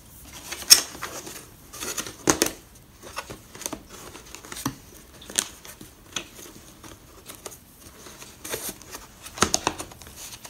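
Lawnmower grass box being assembled: the metal wire frame knocks and clicks against the hard plastic base as it is worked into place, with fabric rustling between. Irregular sharp taps and clatters, a few of them louder.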